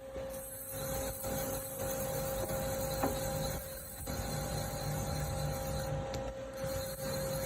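Doosan Lynx 220A CNC lathe running under power: a steady whine over a mechanical whirr that dips briefly now and then.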